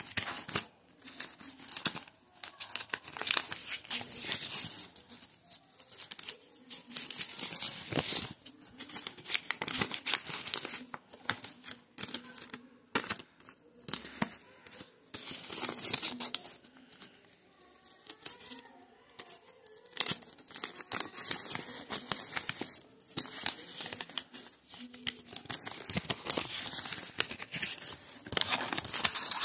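Sheets of paper being handled and pressed by hand, rustling and crinkling in irregular bursts that start and stop throughout.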